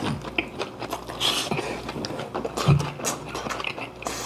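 Eating sounds from a kimchi-jjim meal: slurping and chewing of braised kimchi, with a few short hissy slurps and many light clicks of chopsticks against the dishes.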